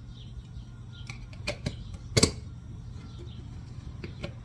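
A few sharp clicks and knocks, the loudest about two seconds in and one more near the end, as the lid of a metal ham maker is fitted and pressed down onto packed ground chicken. A steady low hum runs underneath.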